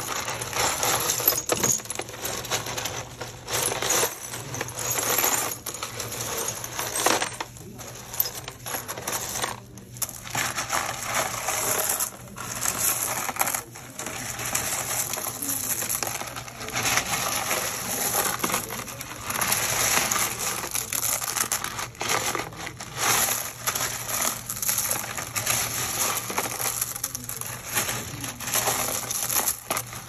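Broken ceramic tile pieces clinking and rattling against each other as a gloved hand stirs and sifts through a tub of them: a dense, continuous clatter of small hard chips, with a few brief pauses.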